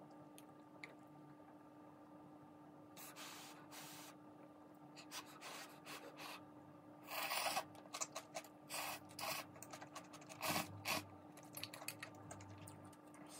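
Eating sounds: ramen noodles slurped in short noisy bursts, mixed with chopstick clicks and bowl handling, over a faint steady hum.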